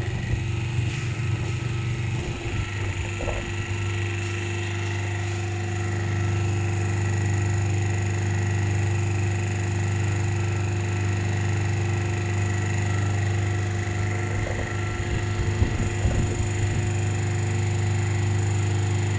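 DC motor and its coupled DC generator running steadily at about 1500 rpm: a continuous low electrical hum with a fainter steady whine above it. A few light knocks come about two seconds in and again near the end.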